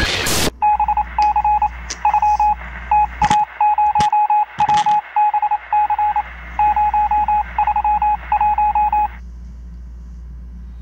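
Telephone signalling tones: clusters of short, evenly pitched beeps repeating over and over from about half a second in, stopping about nine seconds in. A few sharp clicks fall in the middle.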